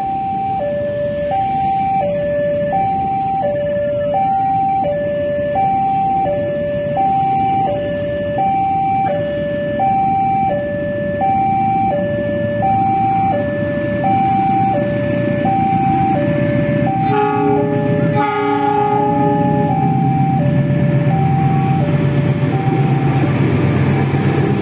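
Railway level-crossing alarm ringing a steady alternating two-tone chime. About 17 s in, a CC206 diesel locomotive sounds its horn for about two seconds, and its engine rumble grows louder near the end as it passes the crossing.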